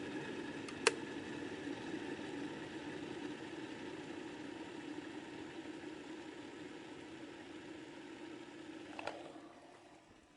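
Kettle heating water, a steady boiling rush that slowly weakens, with a sharp click about a second in. Near the end another click comes and the boiling noise dies away.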